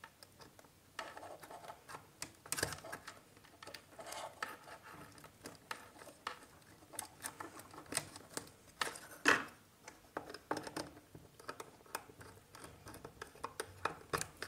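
Hands handling a plastic bulb holder, ceiling rose and insulated wires: irregular small clicks, taps and rustles as the fittings are turned over and wire ends worked into the terminals, with a sharper plastic click about nine seconds in.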